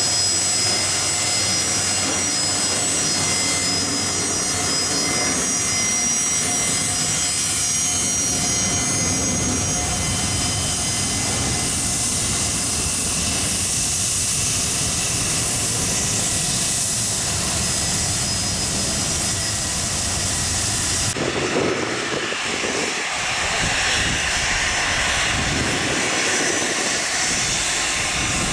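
Gulfstream business jet turbofan engines running at taxi power: a steady whine with several high held tones over the rumble. About two-thirds of the way in, the sound changes abruptly to another Gulfstream's jet engines running.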